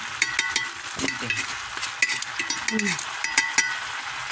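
Marinated chicken sizzling in its sauce in a pot as the sauce cooks down to thicken, with a steady hiss. A utensil clicks and scrapes against the pot several times as the chicken is stirred and turned.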